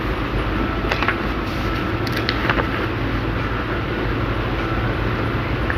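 A steady low background noise, with brief crisp rustles of a square sheet of paper being folded and creased by hand about one second and two seconds in.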